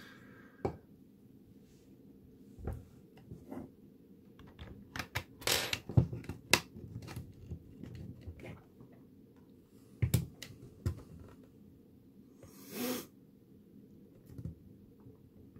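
Hands fitting and pressing a glued 3D-printed plastic panel onto a 3D-printed plastic box: scattered clicks, taps and rubbing of plastic on plastic and on the bench. The busiest, loudest stretch of clicks and rubbing comes about five to six seconds in, with a couple of sharp knocks around ten seconds in.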